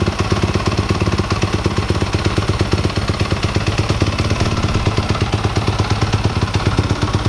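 Yamaha motocross bike's single-cylinder engine running steadily at idle, a rapid even beat.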